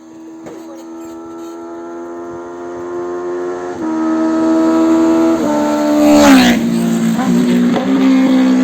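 Benelli TNT 600's inline four-cylinder engine approaching under power, growing steadily louder, then passing close by about six seconds in with a sharp drop in pitch and running on loud at the lower pitch.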